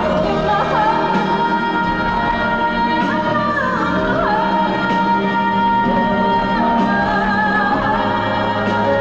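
A woman singing pop live into a handheld microphone over amplified backing music, sliding through a short run near the middle and then holding a long note.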